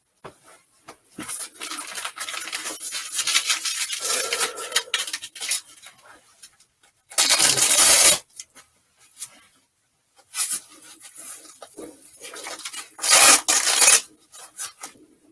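Rustling, rubbing and scraping as fursuit pieces and their straps are handled and fitted, irregular throughout, with two louder scraping bursts of about a second each, about seven and thirteen seconds in.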